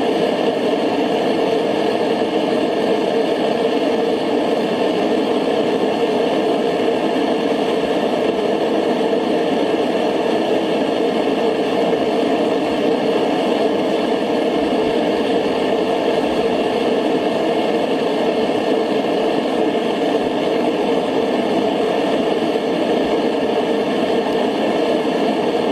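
Mr. Volcano Hero propane forge burner running, a steady, unchanging rush of burning gas.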